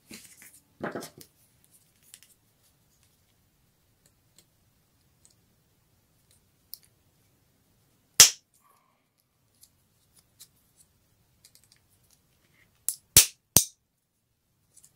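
Side cutters snipping through the plastic holder of an 18650 battery pack: one sharp snap about eight seconds in, then three more in quick succession near the end, with light handling rustle at the start.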